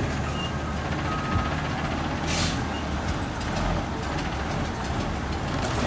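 Front-loader garbage truck's diesel engine running steadily, with a few short reversing beeps in the first second and a half. A short air-brake hiss comes about two and a half seconds in.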